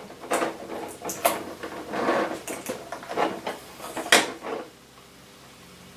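Plastic packaging crackling and tapping as a tiny magnifying-glass accessory is taken out of its tray: a string of irregular crackles and small knocks that stops about four and a half seconds in, leaving a faint hum.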